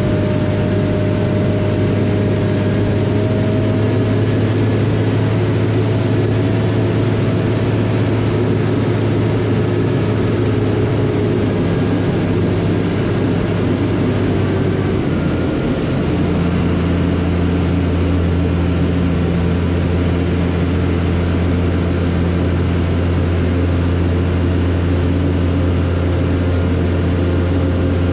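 Steady low engine drone from a TPX 500 towbarless pushback tug moving an Airbus A380. The note drops slightly and settles about halfway through.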